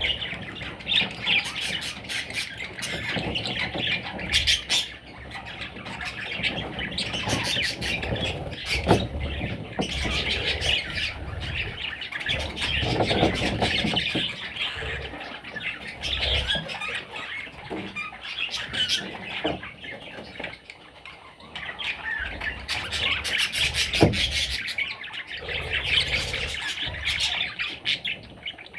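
A flock of budgerigars chattering and squawking continuously, with scattered sharp clicks among the calls.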